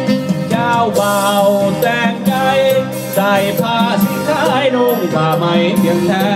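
A Lao-language dance song playing loudly: a bending melody line over sustained lower notes and light shaker-like percussion, between sung verses.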